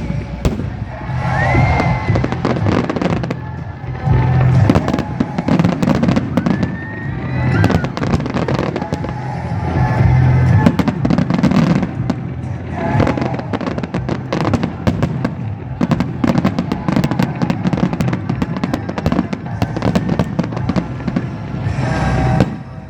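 Fireworks going off in a dense barrage of crackling pops and bangs, with a couple of rising whistles, over music playing.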